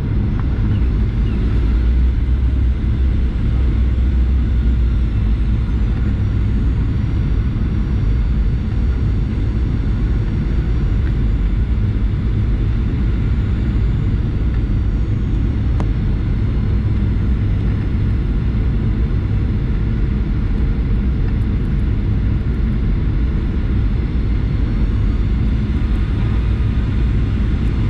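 Boeing 737-800 jet engines and airflow heard from inside the passenger cabin as a steady, loud low rumble. Faint high whining tones shift slightly in pitch near the start and again near the end.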